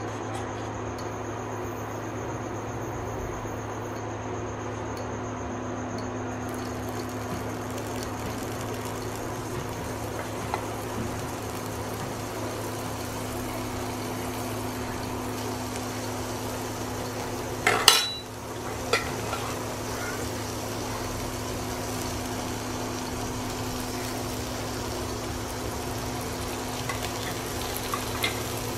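Mustard oil and spices sizzling in a non-stick frying pan over the steady hum of an induction cooktop. A metal spoon clinks sharply against the pan a little past halfway, with a lighter tap about a second later, as ginger paste is added.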